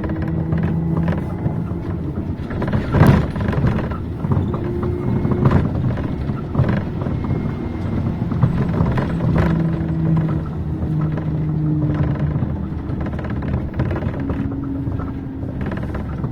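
Cabin noise of a moving city bus: a steady low rumble of engine and road with a humming tone that comes and goes, and occasional knocks and rattles, the loudest about three seconds in.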